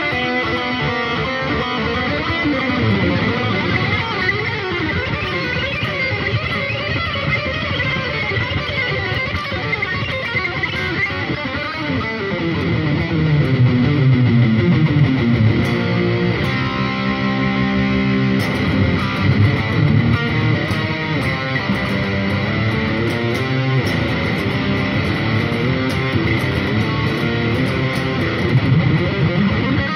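Electric guitar played through an overdrive and delay unit: fast, continuous lead runs with sliding notes, and a few held, ringing notes just past the middle.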